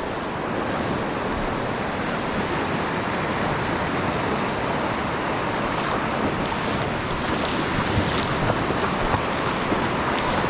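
Atlantic surf breaking and washing up a sandy beach, a steady rush of waves with some wind on the microphone.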